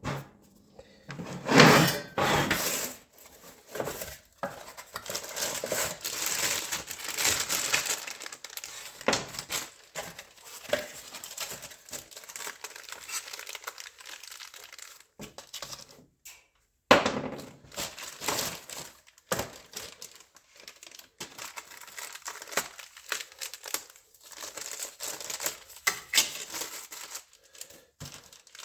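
Irregular crinkling and rustling handling noise, with scattered clicks and knocks and a few louder bursts.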